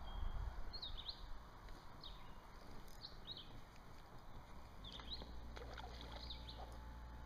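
Small birds chirping repeatedly in short, high calls, over a low rumble and a few soft clicks of fishing tackle being handled.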